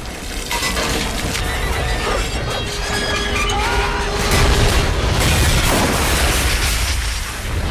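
Film sound mix of a crashing helicopter sliding along the ground and smashing into metal pipework, with crashes, booms and grinding metal, over a loud action score.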